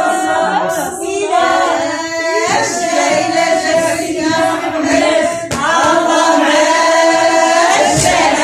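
Women singing a devotional chant together, with long held, wavering notes and a few strikes on a frame drum.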